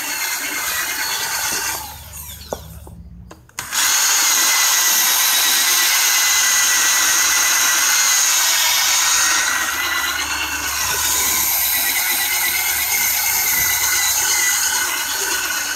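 Black & Decker cordless drill spinning a foam polishing pad against a plastic headlight lens, buffing out haze with liquid compound; a steady motor whine. It dies away about two seconds in and starts up again suddenly about a second and a half later.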